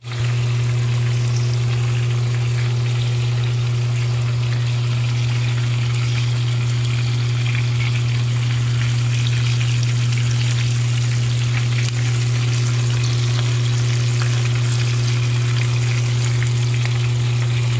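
Whole fish and fish pieces frying in a long pan of hot oil, put back in to heat through before serving: a steady sizzle with many small crackles. A steady low hum runs underneath throughout.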